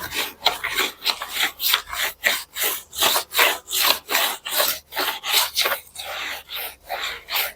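Gritty, rhythmic scraping of sand being stirred into epoxy resin to a thick paste, about three strokes a second.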